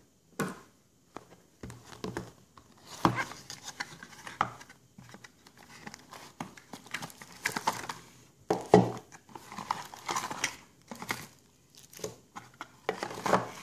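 Cardboard gift-style box being opened and handled, with the plastic wrap around a wall charger crinkling as it is lifted out: irregular rustling with a few sharp knocks of the box on the table.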